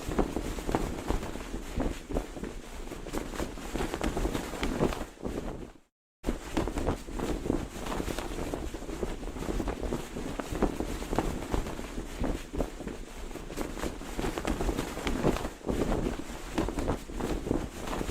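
Cloth flag flapping and snapping in strong wind, with rapid irregular cracks over a constant rush of wind. It fades out briefly about six seconds in, then comes straight back.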